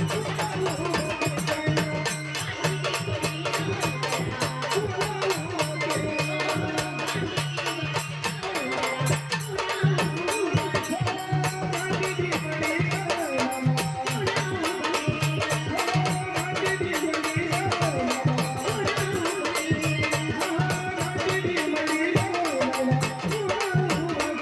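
Marathi devotional folk music with a fast, steady beat of drums and rattling percussion under a wavering melody line.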